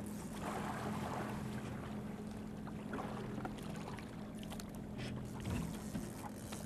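Evinrude outboard motor running with a steady hum at trolling speed, with water splashing at the hull as a landing net is worked through the surface.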